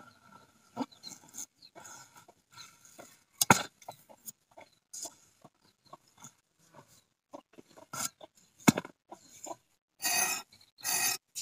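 Bottle gourd being split and sliced on a boti blade: scattered crisp cuts and knocks as the gourd flesh is worked against the blade and the wooden base, with two sharp knocks, and two longer slicing strokes near the end.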